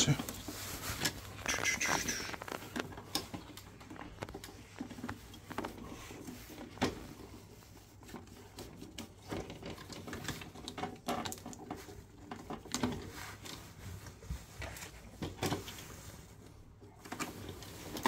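Irregular small clicks, taps and scraping of hands working the Biasi boiler's plastic display board and its plug-in connectors, with a few louder knocks along the way.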